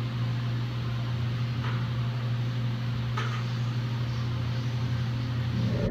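Steady low mechanical hum, with two faint ticks about a second and a half apart.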